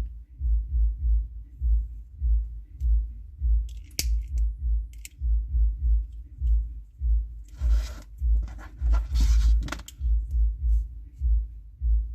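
Background music with a steady low beat. About two-thirds through, a few seconds of scissors cutting and paracord rustling as the leftover cord is trimmed, with a couple of sharp clicks earlier on.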